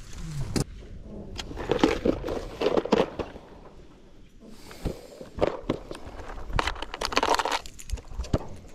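Clear plastic lure box being opened and hard-bodied fishing lures handled inside it: a string of irregular plastic clicks, knocks and rattles.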